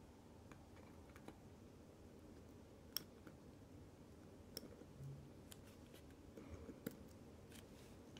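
Faint, light metallic clicks and ticks of a watchmaker's screwdriver and tweezers working on a wristwatch movement, with a few sharper clicks spread through.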